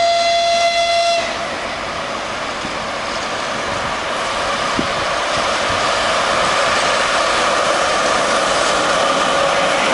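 ChS6 two-section electric locomotive sounding its high-pitched whistle once, a steady note lasting about a second. It is followed by the rush of the approaching express train, which grows steadily louder.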